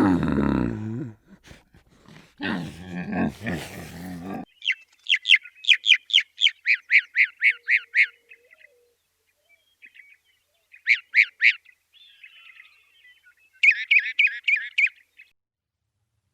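A bird chirping in quick runs of short, high chirps, about four a second: one long run, then two shorter ones. Before the chirping, two low calls sound in the first few seconds.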